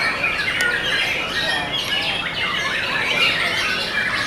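Caged white-rumped shamas (murai batu) singing at once in competition: a continuous tangle of quick overlapping whistles, trills and chattering phrases.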